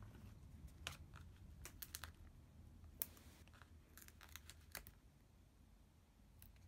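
Faint, scattered ticks and small taps of paper-craft handling, the loudest about three seconds in: foam stamping dimensionals being peeled from their backing sheet and pressed onto cardstock.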